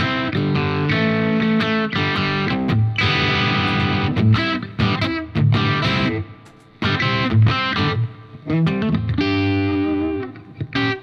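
Overdriven electric guitar playing chords and single notes through an Origin Effects Revival Drive pedal with its boost switched on, into a Diezel Schmidt amp. There is a short pause about six seconds in.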